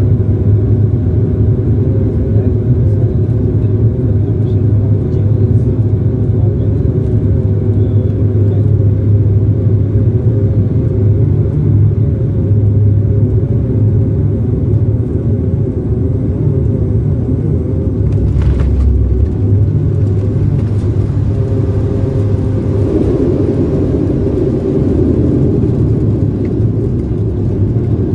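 Steady low rumble of an airliner's engines heard inside the passenger cabin during landing, with wavering engine tones. About two-thirds of the way through there is a brief thud, after which the engine noise grows louder.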